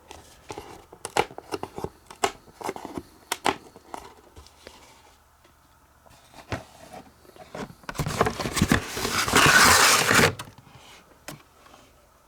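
Die-cut pieces being punched out of a thin cardboard sheet: a quick run of sharp snaps and clicks, then after a quieter stretch about two seconds of loud crackling and rustling cardboard near the end.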